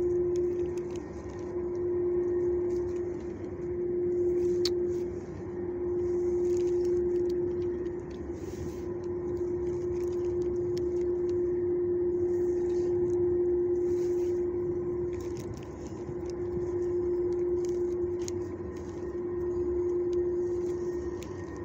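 A steady mechanical hum at one constant pitch, swelling and easing in loudness every few seconds, with a few faint soft rustles over it.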